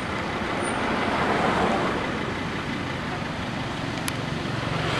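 Steady rushing outdoor background noise that swells about a second and a half in, with a single sharp click near the end.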